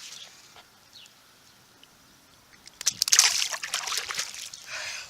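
Water splashing and sloshing: a loud splash about three seconds in that lasts about a second, then a smaller one near the end.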